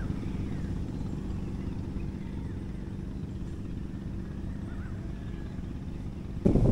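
A steady low engine hum with faint bird chirps over it. Near the end, a much louder rushing noise cuts in suddenly.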